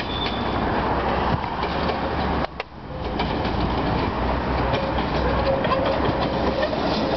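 Island Line Class 483 electric train, ex-London Underground 1938 tube stock, running toward the listener, its wheels clattering over the rail joints. A faint steady whine joins from about halfway, and the sound briefly cuts out about two and a half seconds in.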